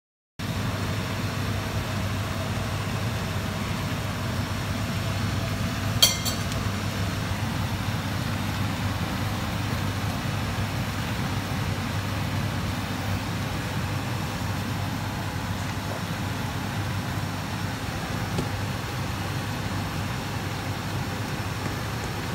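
Steady low hum and hiss of lit gas hob burners under a pan of vinegar fish stew and a frying pan of oil. About six seconds in there is one sharp metal clink.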